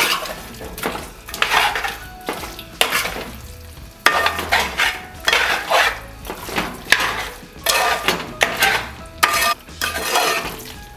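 Metal spoon stirring raw chicken and thick coconut masala paste in a large metal pan: repeated scraping strokes, about one or two a second, with light clinks of metal on metal.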